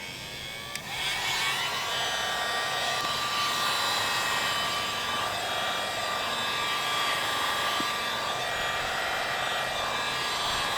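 Electric heat gun blowing steadily, a fan rush with a steady whine, coming up about a second in. It is warming door trim so adhesive strips will stick.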